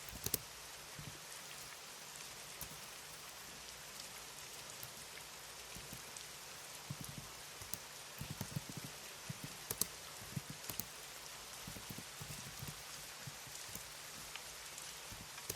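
Computer keyboard typing: irregular soft key taps and clicks that come in clusters, busiest from about halfway in, over a steady background hiss.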